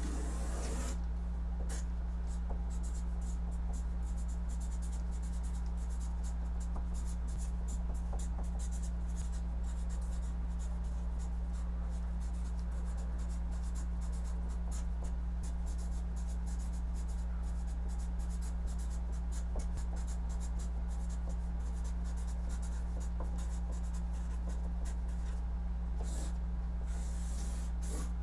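Marker pen writing on large paper sheets taped to a wall: a quick, continuous run of short strokes, with a steady low hum underneath.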